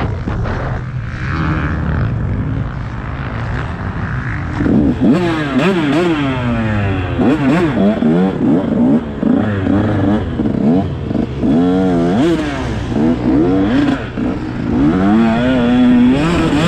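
Motocross bike engine revving up and easing off over and over as it is ridden hard round a dirt track. The note is lower and rougher for the first few seconds, then climbs and drops about once a second with the throttle and gear changes.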